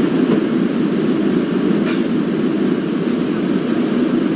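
Airliner cabin noise: a steady, even rumble of engine and airflow noise, with a faint click about two seconds in.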